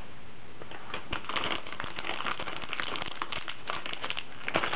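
Plastic zip-top bag crinkling as it is handled, in irregular crackles starting about a second in.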